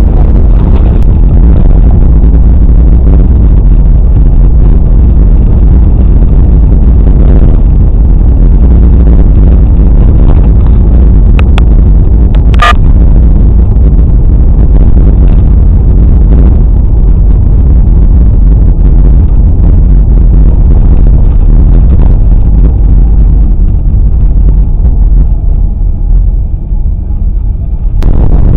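Car engine and road noise heard from inside the cabin: a steady low rumble while driving. One short sharp click about halfway through, and the rumble drops for a few seconds near the end.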